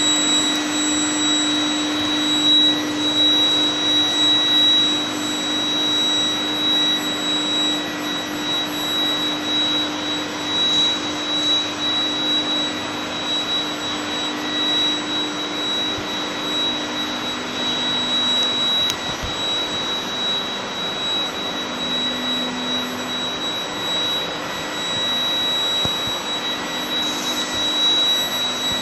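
Bulldozer-blade induction heating line running: a steady industrial noise with a constant high-pitched whine and a lower hum underneath.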